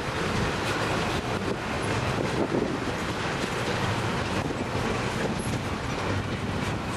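Double-stack intermodal container cars of a CSX freight train rolling past at close range: a steady rumble of steel wheels on the rails, with scattered faint clicks.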